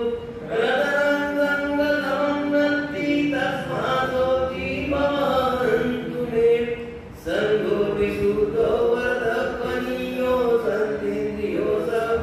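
Buddhist devotional chanting in Pali, led by a man's voice through a microphone, in long drawn-out phrases on a sustained pitch, with a short break about seven seconds in.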